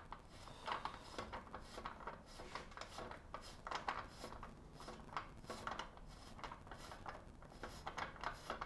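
Faint, irregular metallic clicks and scraping as a bottom bracket tool on a ratchet unscrews a reverse-threaded bottom bracket cup from a bicycle frame.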